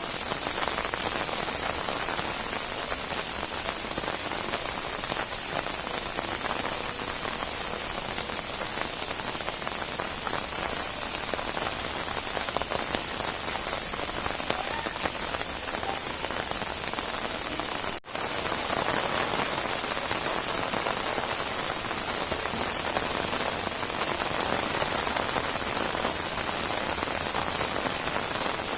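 Steady heavy rain falling, a dense patter of raindrops on surfaces. It cuts out for an instant about two-thirds of the way through.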